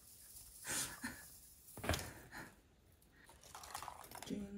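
Faint handling noises, soft rustles and one sharp click about two seconds in, as small battery fairy lights are wound onto a mini Christmas tree. Background music starts just before the end.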